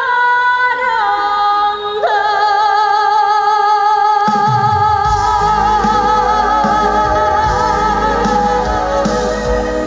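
Live pop-trot performance: a female voice holds a long note with vibrato, stepping in pitch twice near the start. A band's bass and drums come in about four to five seconds in.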